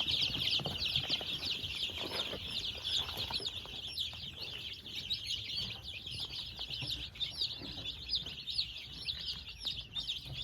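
A large brood of baby chicks peeping continuously, many short high chirps overlapping without a break.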